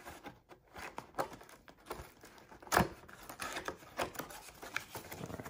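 Cardboard shipping box being torn open by hand: packing tape peeling and the cardboard flap ripping and scraping in short irregular crackles, with a sharper tear about three seconds in.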